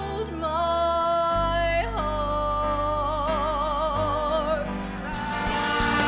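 Musical theatre song: a singer holds long notes with vibrato over steady sustained accompaniment, stepping up in pitch about two seconds in, with a brighter, busier passage starting near the end.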